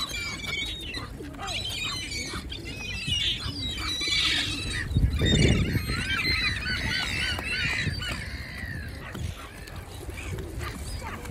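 A crowd of waterbirds calling over one another at a feeding spot, many short overlapping honks and squawks. A brief low rumble comes about five seconds in.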